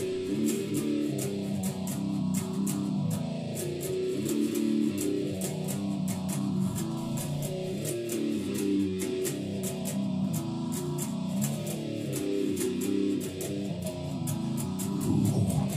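Electric guitar playing an instrumental goregrind riff, chords shifting every second or so, with regular sharp ticks throughout.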